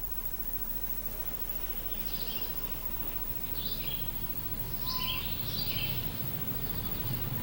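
Outdoor park ambience with a steady low hiss, and from about two seconds in a bird giving several short chirping calls.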